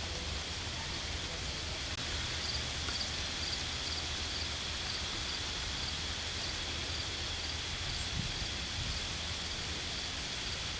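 Pond-side ambience with insects: a steady high trill and paired chirps repeating about twice a second, over a low steady rumble and hiss.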